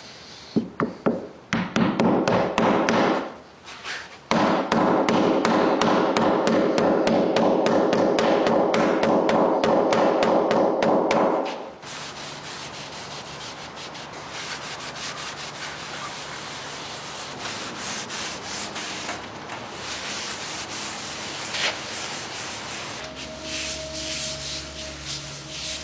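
Wood being sanded: a few short rubbing strokes, then a loud, steady run of about seven seconds that cuts off sharply, followed by quieter steady rubbing.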